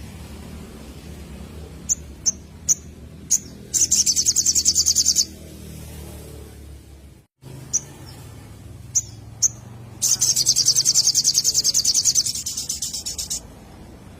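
Sogon bird lure call: a few sharp high chirps, then a fast high trill of about ten notes a second. The phrase comes twice, with a brief cut to silence between the two, as in a looped recording.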